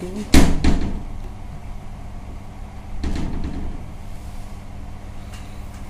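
Two sharp knocks about a third of a second apart, then a softer handling rustle about three seconds in, over a low steady hum.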